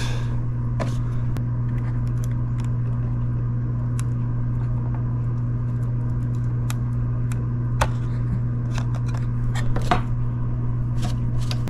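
A steady low hum in the room, with scattered light clicks and taps from tweezers and fingers working tape onto the plastic printed circuit board of an instrument cluster, coming more often near the end.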